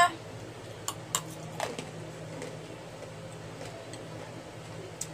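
A few sharp crunching clicks of a hard breadstick being bitten and chewed, mostly about a second in, over a low steady hum.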